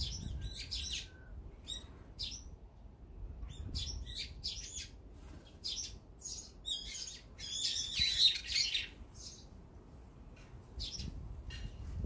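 Small songbirds chirping and calling again and again, short high notes from several birds, with a dense, loud flurry of calls about eight seconds in.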